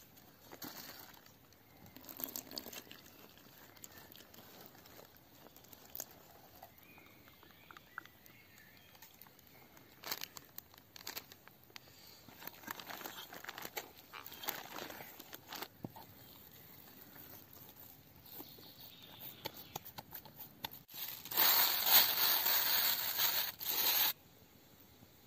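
Hands mixing flour and water into dough in an aluminium pan, with soft scattered rustles and taps. Near the end a plastic bag is handled around the dough: loud crinkling for about three seconds, then it stops suddenly.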